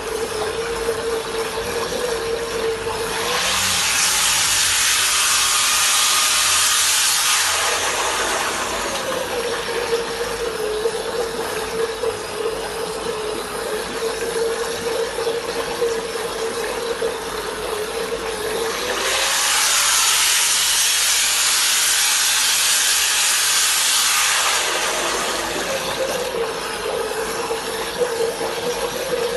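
Corded electric power tool running submerged in a bucket of water, its motor whining steadily while the water churns and splashes. Twice, for about four to five seconds, a louder rushing hiss of thrashed water takes over as the motor note rises, before it glides back down to the steady whine.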